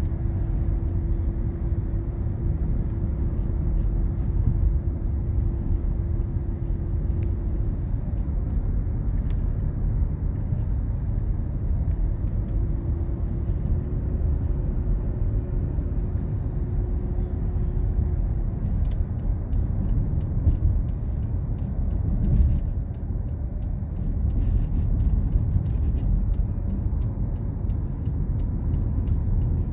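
A car driving on a highway, heard from inside the cabin: a steady low road-and-engine rumble. A faint steady hum runs through the first half or so, and faint light ticks come later on.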